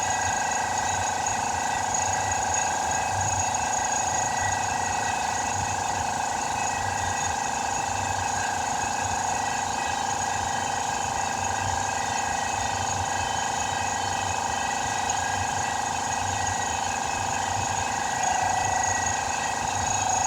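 A machine running steadily, with a constant whine and a low hum that pulses about once a second.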